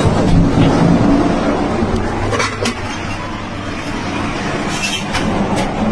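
A battery that exploded while charging, burning: a loud, steady rush of fire and venting gas, with a handful of sharp crackles and pops.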